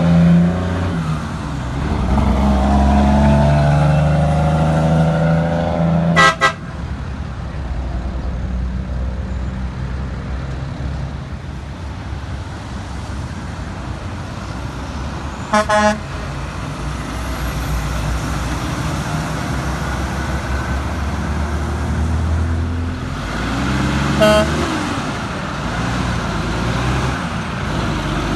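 Heavy diesel trucks and cars running through an intersection, engines rising and falling as they pull away, with three short horn toots spaced several seconds apart.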